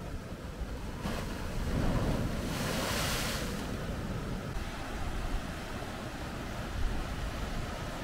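Sea waves washing up over a stone slipway and rocks: a wave surges in about a second in, its foaming rush loudest around three seconds, then draws back to a lower wash.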